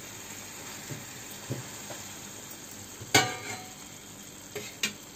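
Tomato-cauliflower curry sizzling steadily in a pan turned down to a low flame. A couple of faint knocks of the spatula come early, then at about three seconds in a utensil strikes the pan once with a sharp, briefly ringing clink. Two lighter taps follow near the end.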